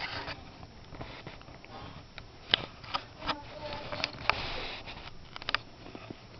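Hermann's tortoise biting and chewing food in a plastic dish: irregular sharp crunching clicks with some rustling in between.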